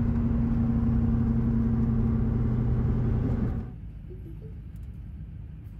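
A vehicle's engine and road noise in a steady drone at constant speed, which cuts off abruptly about three and a half seconds in, leaving a quieter low rumble.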